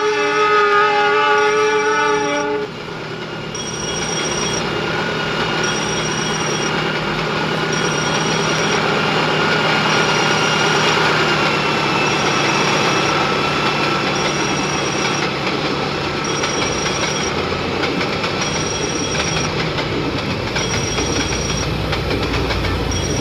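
Horn of a CC206 diesel-electric locomotive sounding a hoarse chord, cutting off about two and a half seconds in, followed by the steady noise of the train running on the rails.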